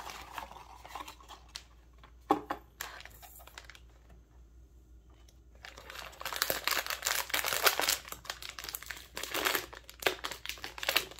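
Foil blind-box packet crinkling and tearing as it is handled and opened by hand, densest in the second half. Before that, a small cardboard box is opened with a few sharp clicks, one louder about two seconds in.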